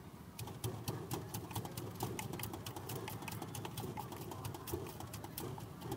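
Rapid, irregular clicking and tapping, several clicks a second, over a steady low background rumble.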